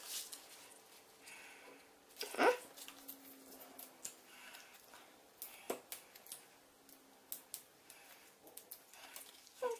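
Paper and card stock being handled on a craft mat while the backing is peeled off small adhesive foam pads: scattered light rustles, taps and clicks, with a louder brief scrape about two and a half seconds in and another near the end.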